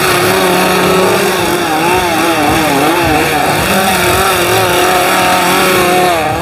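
Several chainsaws revving at once, their pitches wavering up and down and crossing one another.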